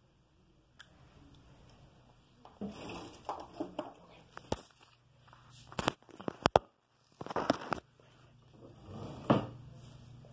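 A phone camera being handled and repositioned by hand: rubbing and scraping against the microphone, with several sharp knocks, the loudest cluster about six seconds in as the hand covers the lens.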